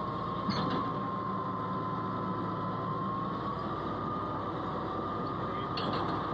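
Komatsu bulldozer running steadily, with a continuous whine that sags a little and rises again, and a few short clicks.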